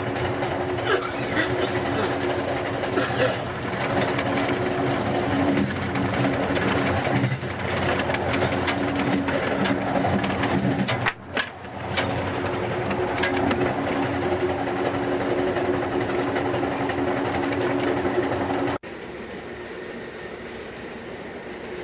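Amtrak Capitol Limited passenger train running at speed, a steady hum of several tones over a mechanical rattle, with a brief dip about eleven seconds in. Near the end the sound drops suddenly to a quieter, steady ride noise inside the car.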